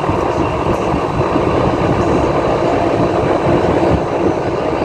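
Split-type air conditioner outdoor unit running with a steady mechanical noise: a hard-starting compressor brought into running with an added start capacitor.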